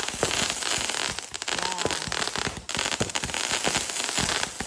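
Fireworks going off: a dense, continuous crackle of many small pops and bangs.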